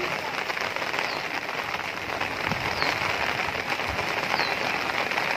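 Steady rain falling, a dense even hiss with fine crackle. A few faint short high chirps sound over it.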